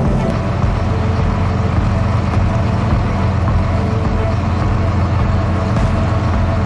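Fishing boat's engine running steadily: a constant low rumble.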